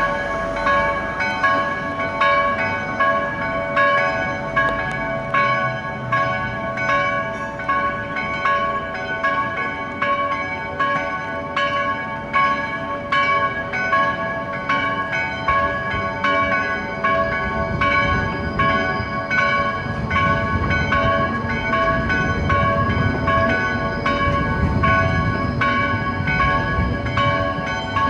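Church bells of St. Clara's Church pealing: several bells swinging and striking in turn, about two strokes a second, their tones overlapping and ringing on. A low rumble joins beneath them from about halfway through.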